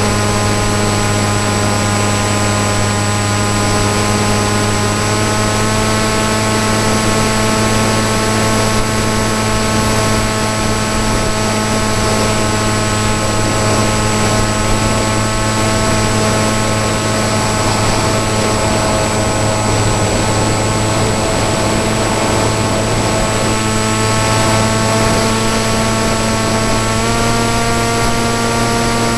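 Electric motor and propeller of a PopWing foam flying wing in flight, a steady pitched drone over a rush of air noise. The pitch steps up slightly near the end as the throttle rises.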